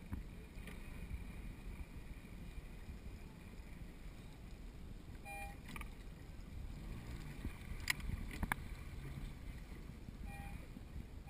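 Steady low wind rumble on the microphone and water moving against a small boat's hull, with several sharp clicks in the second half.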